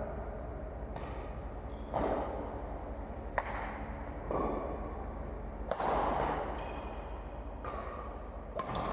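A series of about seven sharp impacts at irregular intervals, each with a short echo, over a low steady hum.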